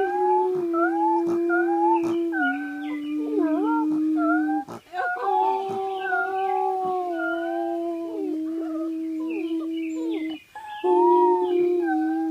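Rottweiler puppy howling along in short wavering yowls that rise and fall, over a man's long held howl that steps between a few notes and breaks off twice for breath.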